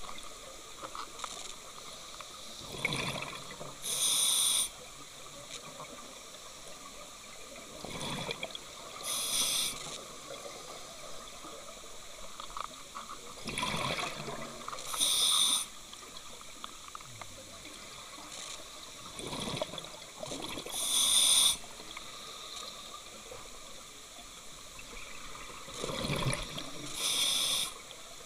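Scuba diver breathing through a regulator underwater: five breaths, about one every six seconds, each a bubbling exhalation and a short, sharp hiss of air through the regulator.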